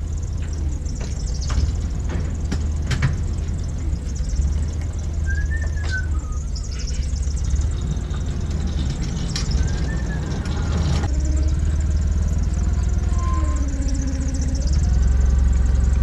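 A vehicle engine idling steadily with a low rumble, with scattered knocks and clanks from pumpkin boxes being moved on a pallet jack. The engine grows louder near the end.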